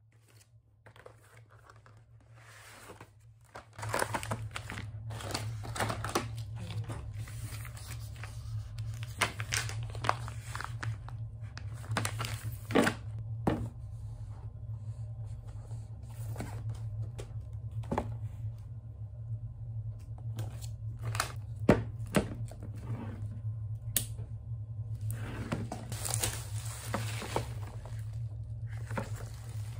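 Grocery packaging being unpacked by hand: plastic and cardboard crinkling and rustling, with sharp taps and knocks as boxes and plastic tubs are set down on a table. It starts about four seconds in, over a low steady hum.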